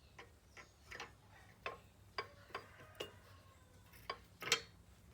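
Irregular metal clicks and light knocks as a new coil hood spring is handled and hooked over nuts welded to a floor jack, with one sharper clink near the end.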